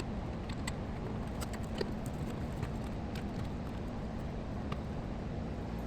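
Faint, scattered clicks and taps of computer cables and parts being handled, over a steady low background hum.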